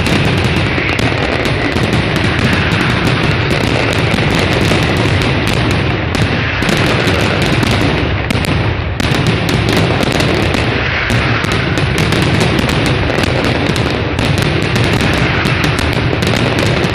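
A mascletà: a dense, unbroken barrage of firecracker bangs and aerial shell bursts, many per second. It eases only for a moment twice.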